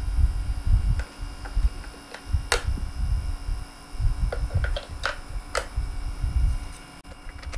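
AA batteries being fitted into the plastic battery compartment of an MESR-100 ESR meter: a scatter of small clicks and knocks, two of them sharper, over low rumbling handling noise.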